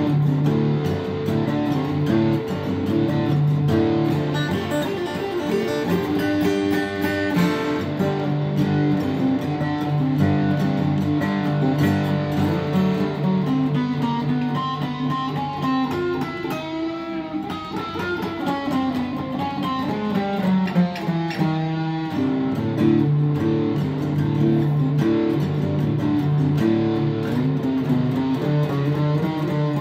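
Acoustic guitar playing a tune, a steady run of plucked and strummed chords.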